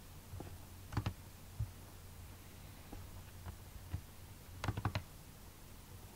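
Computer mouse clicks, a close pair about a second in, a few scattered single clicks, and a quick run of clicks near the end as a file is double-clicked open, over a steady low hum.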